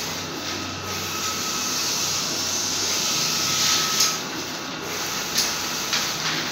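Large-format printer running with its cooling fans, a steady mechanical whir and hiss with a faint high whine; a sharp click comes about four seconds in and another a little later.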